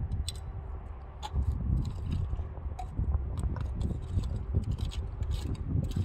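Seashore ambience: a low, uneven rumble with many scattered small clicks and scrapes throughout.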